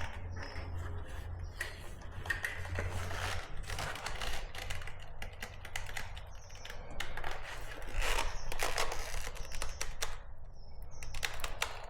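Caulking gun being pumped: irregular runs of clicks and rattles from the trigger and plunger rod. The old tube of caulk has hardened, so nothing squeezes out.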